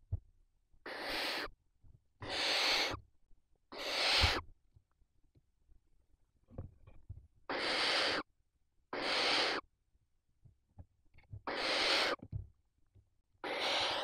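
Barn owl chicks giving their rasping, hissing begging calls, seven hoarse breathy hisses in groups of three, two and two with short pauses between, as an adult feeds prey at the nest.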